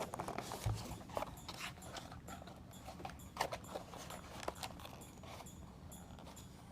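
Irregular light clicks, taps and scrapes of a cardboard box being cut open with a blade and handled.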